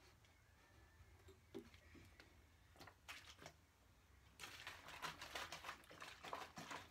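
Large thin plastic bottle of water being handled and shaken, its plastic crackling faintly. There are a few scattered clicks at first, then a dense run of rapid crackles from about four seconds in.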